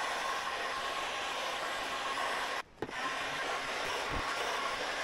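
Electric heat gun, set to about 630 °C, blowing steadily with a faint fan whine as it shrinks adhesive-lined heat shrink over battery cable joints. The sound drops out for a moment about two and a half seconds in. A few faint knocks come from the heavy cables being handled.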